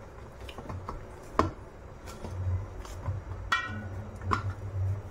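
Light clicks and taps of hands working stiff gram-flour (besan) dough against a stainless steel plate, breaking off pieces, with a brief ringing note about three and a half seconds in. A low steady hum comes in about two seconds in.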